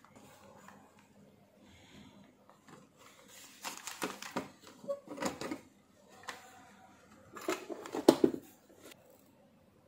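Handling noise from a TV main circuit board being moved about and turned over on a crinkly foil-like sheet: rustling and clicking in a few short bursts, the loudest about eight seconds in.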